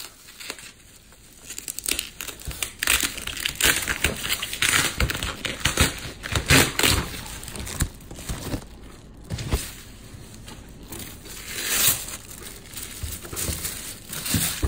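Bubble wrap being pulled off and unwrapped from a boxed figure: plastic crinkling and rustling in irregular handling bursts, faint for the first couple of seconds.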